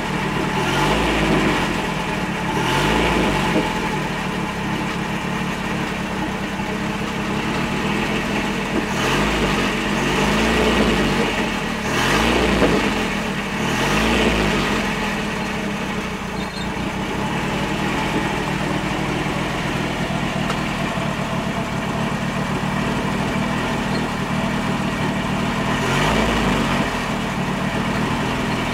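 1970 Bedford CA Debonair camper van's petrol engine idling, heard from inside the cab. It is revved briefly several times, mostly in the first half and once more near the end.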